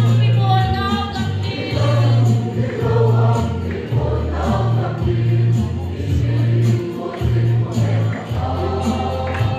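A group of voices singing a gospel song over band accompaniment, with a heavy bass line and a steady percussion beat.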